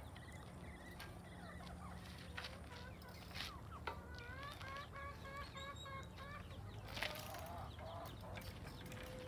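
Chickens clucking quietly, a run of short repeated calls in the middle, with a few sharp clicks.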